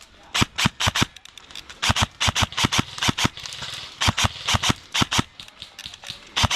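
Airsoft gun fired semi-automatically, a quick run of sharp pops about four or five a second, in several short strings.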